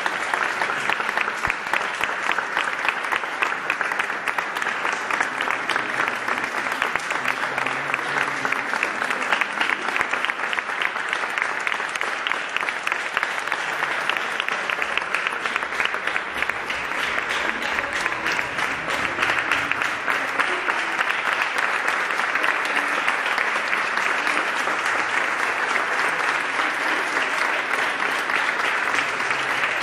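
Audience applauding: many hands clapping at once in dense, sustained applause.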